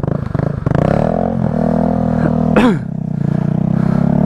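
Small single-cylinder mini-bike engine running steadily at a fast idle, its pitch wavering, with a brief sharp falling sound about two-thirds of the way through.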